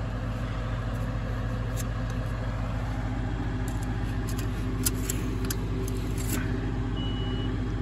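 Tractor diesel engine idling steadily, heard close up from the open engine bay, with a few light clicks of hands working at the dipstick during an oil check.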